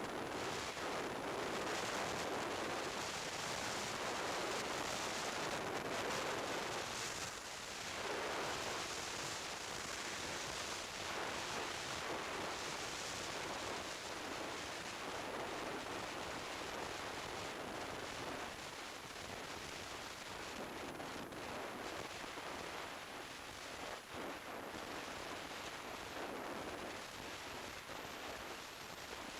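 Steady rush of wind over the microphone of a camera on a moving Kawasaki Z1000SX motorcycle at speed, with road noise underneath, a little louder in the first several seconds.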